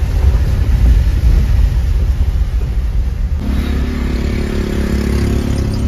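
Car driving along a flooded road, heard from inside the cabin: a steady low rumble of engine and tyres through water. About three and a half seconds in, the sound changes abruptly to a steadier drone with a couple of held humming tones.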